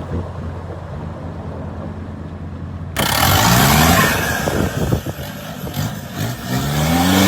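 An off-road 4x4's engine running low and steady, then about three seconds in an abrupt switch to loud revving, the revs climbing several times over a broad rushing noise.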